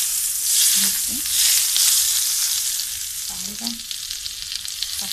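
Hot oil tempering (baghaar) with crushed red chillies poured over yogurt, sizzling loudly as it hits. The hiss is loudest in the first couple of seconds and slowly dies down.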